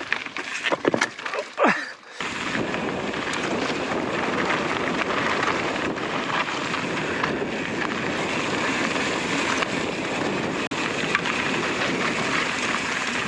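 Strong wind buffeting a helmet-mounted action-camera microphone as a mountain bike rolls over a loose, rocky trail, steady and loud after a couple of seconds of clicks and knocks.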